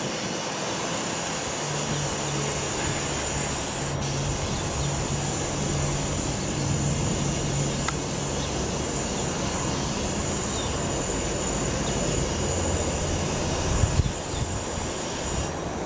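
Sikorsky S-92 twin-turboshaft search and rescue helicopter flying past: steady heavy rotor and engine noise with a high turbine whine over it. A brief bump near the end.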